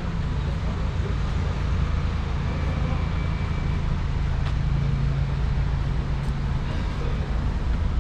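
Street traffic: a car engine running close by, a steady low hum that is strongest around the middle, over the general noise of the street. A single sharp click about four and a half seconds in.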